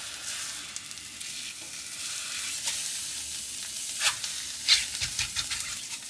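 Egg whites sizzling in a nonstick frying pan, a steady high hiss, with a couple of sharp clicks of a utensil against the pan about four seconds in.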